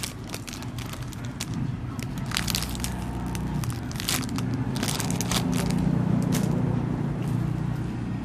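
Plastic packaging crinkling and crackling in irregular handfuls as it is handled, over a steady low hum that grows louder in the second half.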